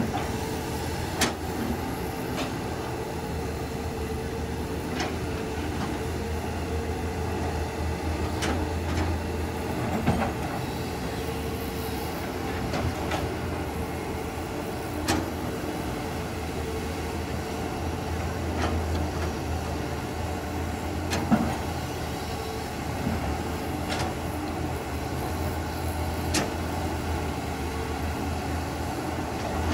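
Crawler bulldozer's diesel engine running steadily under work, with sharp metallic clanks and knocks every few seconds, the loudest about a second in and again about 21 seconds in.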